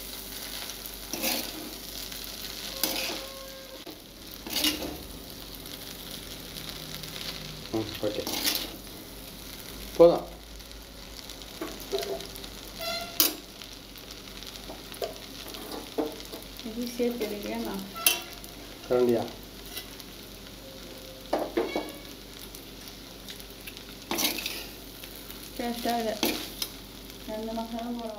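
Noodles stir-frying in a kadai: a steady sizzle, with a perforated steel spoon scraping and knocking against the pan at irregular intervals as the noodles are tossed.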